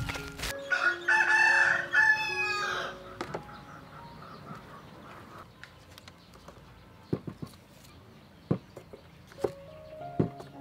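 A rooster crowing once, starting about half a second in and lasting about two and a half seconds; a few short knocks follow in the second half.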